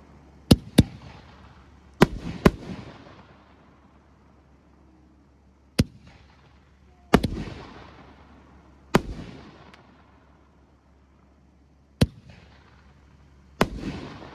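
Titanium Fireworks Mafia 5-inch aerial shells bursting: about nine loud, sharp bangs, some coming in quick pairs, with an echo trailing off after several of them.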